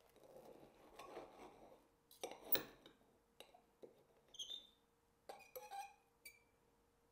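Faint clinks and scrapes of cutlery on a plate, with a few light knocks, the sharpest about two and a half seconds in.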